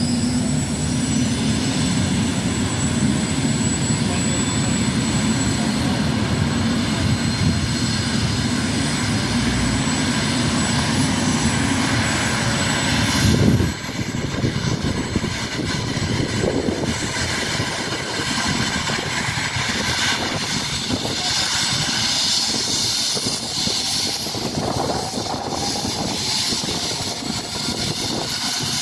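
Eurocopter EC135 air ambulance helicopter running on the ground with its rotor turning, a steady high turbine whine over the rotor and engine noise. The heavy low rumble drops off sharply about halfway through.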